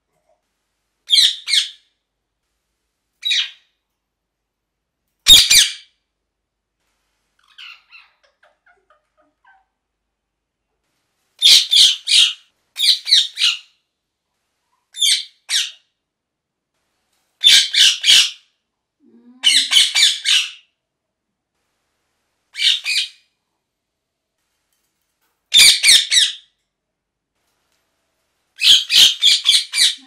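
Rose-ringed (ringneck) parakeet giving short, harsh, high-pitched calls in about ten bursts, each of one call or a quick run of two to four, with silent gaps between.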